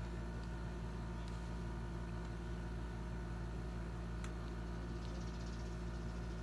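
A steady low hum with a faint hiss over it, unchanging in level, with two faint ticks at about one second and four seconds in.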